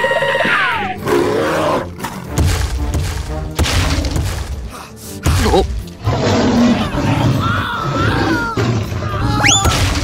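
Cartoon soundtrack of music mixed with sound effects: a held whistle-like tone that slides down in the first second, heavy low rumbling and crashes through the middle, and a quick rising whistle near the end.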